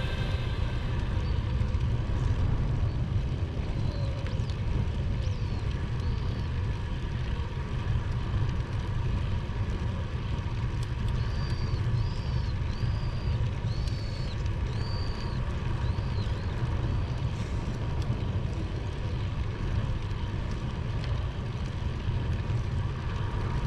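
Wind rumbling steadily on the microphone during a bicycle ride. A run of short high chirps comes in around the middle.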